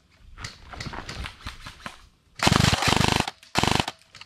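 Airsoft electric gun firing on full auto: two rapid bursts about halfway through, the first under a second long and the second shorter, after a few lighter scattered clicks.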